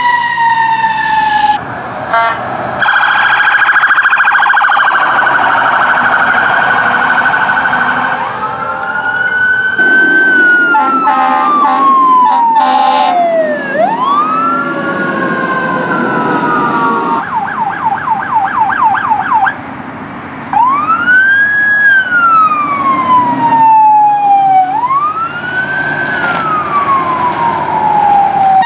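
Emergency sirens of fire apparatus responding. Wails rise and fall slowly several times, one winds down slowly, there is a stretch of a steady warbling tone, and about two-thirds of the way through a rapid yelp runs for a couple of seconds.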